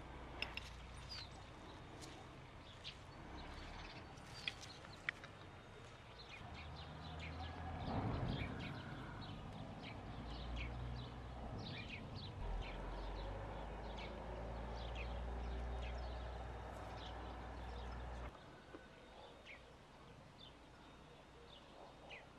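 Small birds chirping on and off in the open air, with a low rumble through the middle. A few sharp clicks in the first five seconds come from forks tossing the salad on a ceramic plate.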